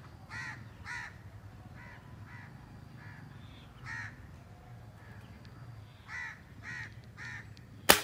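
A bird calling in about ten short, repeated notes, then a single sharp rifle shot just before the end, much louder than the calls.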